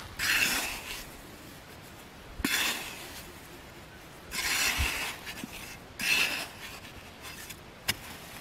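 A metal digging blade scraping and chopping into dry, crumbly soil, in four separate strokes a second or two apart, with a sharp click near the end.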